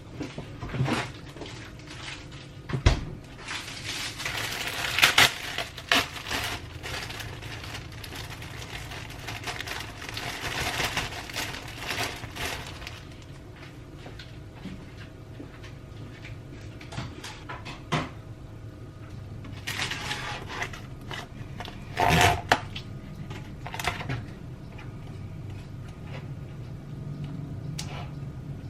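Kitchen clatter: scattered knocks and clinks of dishes, utensils and cupboard doors being handled, with stretches of rustling in between.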